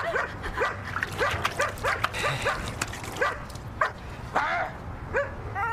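A dog barking over and over in short, quick barks, about two or three a second.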